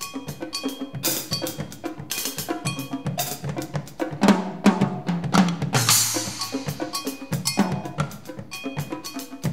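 Percussion duo playing drums and cymbals in a fast, dense pattern of sharp strokes. About four seconds in, deeper, louder drum strokes join.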